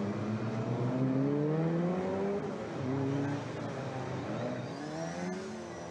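Historic racing cars' engines accelerating hard. The engine note climbs in pitch, drops back about halfway through, then climbs again.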